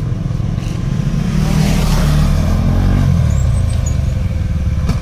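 Motorcycle engines running, one revving up and swelling to its loudest as it passes close about two seconds in, then settling back.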